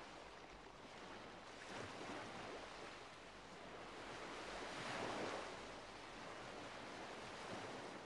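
Soft, even rushing noise that swells and fades in slow surges, loudest about five seconds in.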